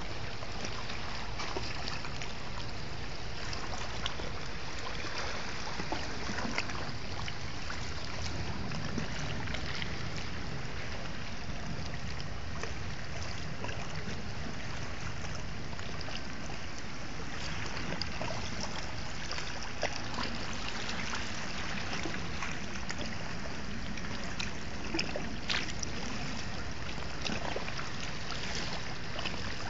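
Sea waves washing over a beach of rounded pebbles, with many small sharp clicks as the stones knock together in the moving water.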